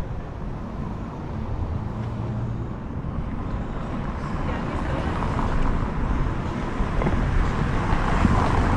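Inline skate wheels rolling on paving: a steady rumble that grows louder toward the end.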